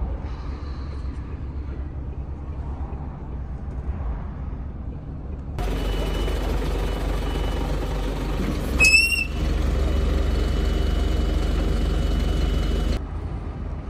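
Low, steady rumble of a running vehicle engine, louder after a cut about halfway through, with a short rising squeal near the nine-second mark.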